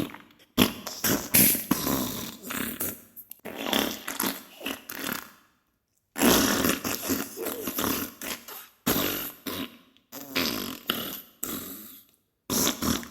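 Diarrhea sound effect: repeated sputtering fart bursts, broken by a silent gap of about a second midway and a shorter one near the end.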